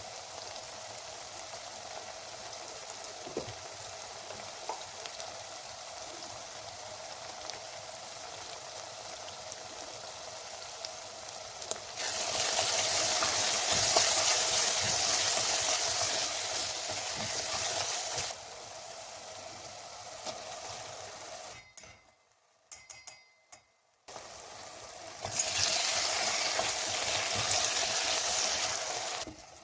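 Food frying in olive oil in a pot, a steady sizzle with stirring. The sizzle swells louder for several seconds twice, about halfway through and again near the end, with a short near-silent break between.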